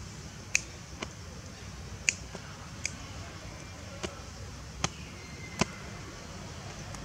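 Sharp, separate clicks and snaps, about seven of them at irregular intervals, over a steady low background rumble.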